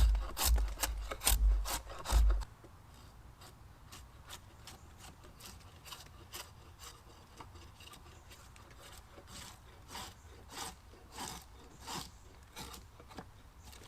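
Hand saw cutting through wood with quick back-and-forth strokes, about two a second. The strokes are loud for the first two seconds or so, then continue more softly.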